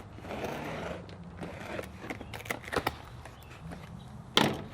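Handling noise from the light bar kit's packaging: a brief rustle, then a series of light clicks and knocks, and one louder thump near the end.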